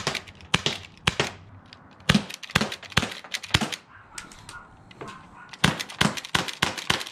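CO2 airsoft pistol firing a string of single shots, each a sharp pop. They come unevenly, about two a second, with some quick pairs and a faster run near the end.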